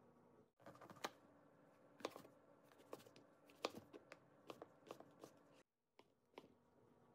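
Kitchen knife slicing through a king oyster mushroom and tapping on a wooden cutting board: a string of irregular light knocks.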